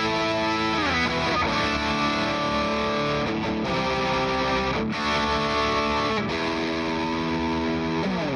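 Electric guitar played through distortion: sustained lead notes held for a second or so each, with a slide down in pitch about half a second in and again near the end.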